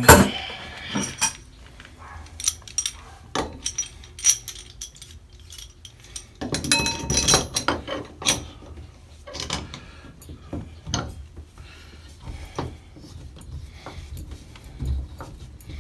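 Scattered metallic clinks and clicks of a metal handle puller being fitted and worked on a stuck shower-valve handle. A sharp knock comes right at the start, and a busier run of clinks comes about halfway through.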